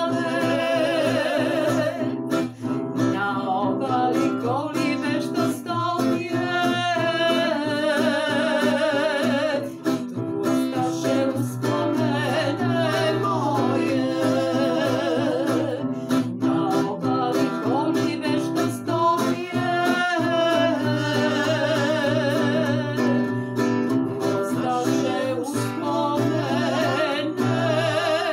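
Acoustic guitar strummed as accompaniment while a woman and a man sing a folk song together, holding long notes with vibrato.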